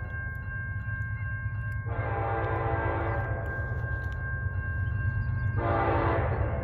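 Air horn of an approaching CN freight train's lead locomotive, an EMD SD70M-2, sounding two separate blasts: one of over a second about two seconds in, and another near the end. A steady low rumble of the oncoming train grows louder underneath.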